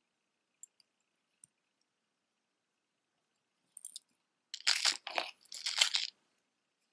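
Costume jewelry rummaged by hand: metal chains and rhinestone pieces rattling and clinking, with a few faint chain clicks at first, then two loud rattling bursts starting about halfway through.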